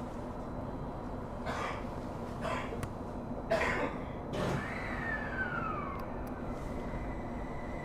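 Interior running noise of a JR East E721 series electric multiple unit: a steady rumble with an electric whine that slides down in pitch and then settles into a steady high whine. A person coughs a few times in the first half.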